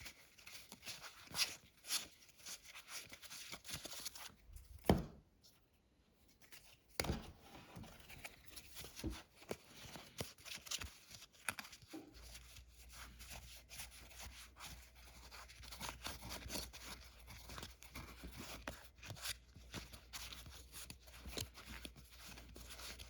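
Trading cards and their packaging being handled by hand: quick rustles, scrapes and light taps of card stock, with a sharper knock about five seconds in.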